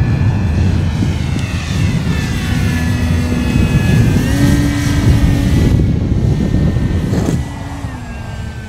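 E-flite Viper model jet's electric ducted fan whining as it flies a pass, its pitch sliding down and then back up as it goes by. It stays loud until about seven seconds in, then drops away as the jet flies off.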